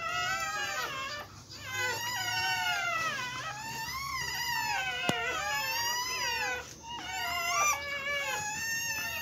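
Newborn Siberian Husky puppies squealing and crying over one another while they nurse: many thin, high cries, each rising and falling in pitch. A single sharp click comes about five seconds in.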